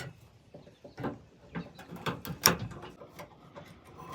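Irregular sharp clicks and taps of hands working the tailgate latch linkage, its rods and plastic retaining clips, inside an opened pickup tailgate.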